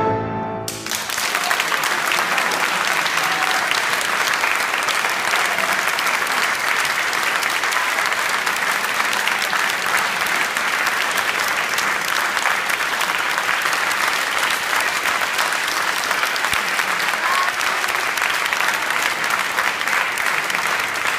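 A final violin and piano note ends within the first second, then audience applause, steady and dense, fills the rest.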